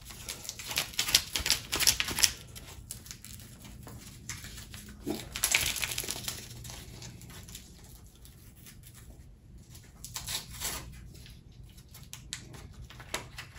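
Crisp crinkling and tearing of a single-serve hot-chocolate mix packet being handled and opened, in a few short bursts with quiet between.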